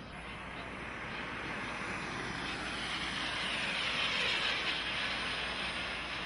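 Turbine engine of a radio-controlled model jet rushing past in a fly-by: a steady jet noise that grows louder to a peak about four seconds in, then eases off slightly.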